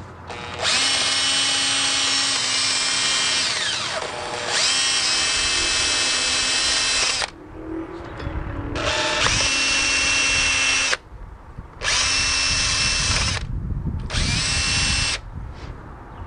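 Makita cordless drill spinning a wire wheel brush against the rear wheel hub, in five runs of a few seconds each with short pauses between. About four seconds in, the motor slows and then speeds up again.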